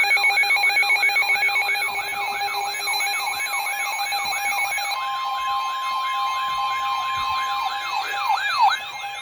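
Electronic siren-like alert sound: a tone sweeping up and down about two and a half times a second over steady, rapidly pulsing beeps. About five seconds in, a single steady alarm tone joins.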